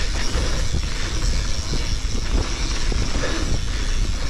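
Mountain bike riding fast down a dirt trail: heavy wind rumble on the camera's microphone, tyres rolling over dirt and stones, and a run of quick clicks and knocks from the bike rattling over bumps.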